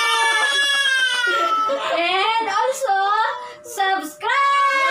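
Several women and a small child calling out drawn-out, sing-song goodbyes together, with a brief lull about three and a half seconds in.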